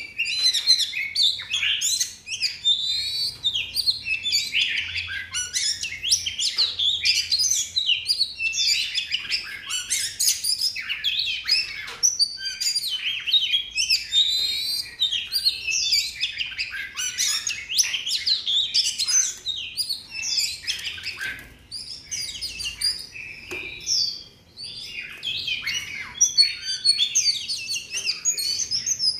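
Caged oriental magpie-robin singing a long, varied song of clear whistles and rapid chattering phrases, broken only by short pauses.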